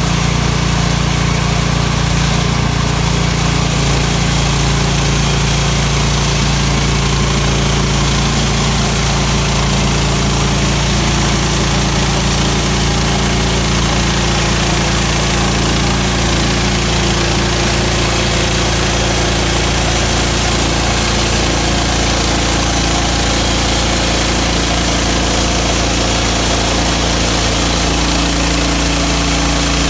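Sawmill's gasoline engine running steadily at a constant speed during milling, with a slight change in its tone near the end.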